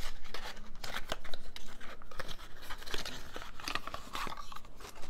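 Small paperboard product carton being opened by hand: the flaps scraping and the card rustling, with an irregular run of small clicks.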